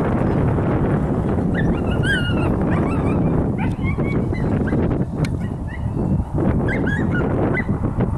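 Basenji-mix dog whining and yipping in short, wavering high-pitched cries, several times over a few seconds, over steady wind rumble on the microphone.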